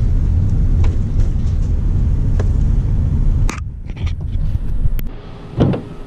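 Nissan van's engine and road noise heard from inside the cabin while driving, a steady low rumble. About three and a half seconds in it cuts off, and a few sharp clicks and a thump follow.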